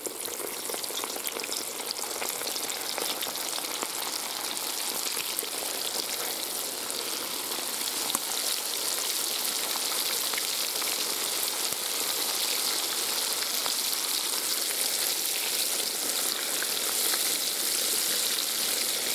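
Flour-dredged carp steaks frying in hot vegetable oil in a kazan: a steady, dense sizzle with fine crackling that begins as the fish goes into the well-heated oil and grows slightly louder toward the end.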